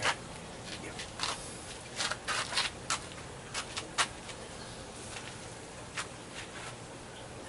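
Scattered sharp clicks and taps at uneven intervals, most of them in the first half, over a steady background hiss.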